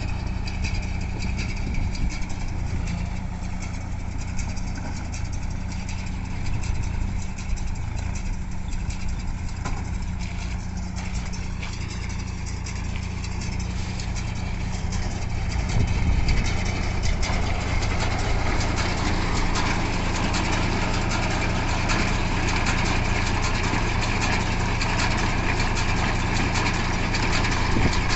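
Swaraj 963 FE tractor's diesel engine running steadily while driving a baler. A little past halfway the sound becomes louder, with more rushing and rattling noise over the engine's drone.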